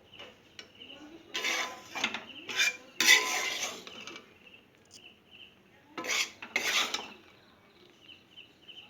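A spatula scraping and stirring grated coconut, roasted in ghee and coconut oil, around a hot kadai, in several short bouts of scraping with pauses between.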